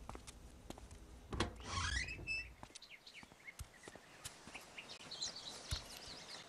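Faint birds chirping, preceded about a second and a half in by a brief rising whoosh.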